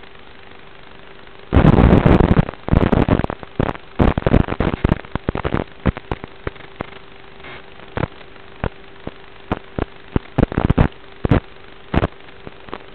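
Analog FPV video-receiver audio: a steady hiss with a faint hum, broken by loud bursts of static crackle. The crackle is densest from about one and a half to three and a half seconds in, then comes as scattered pops, and marks the analog video signal breaking up.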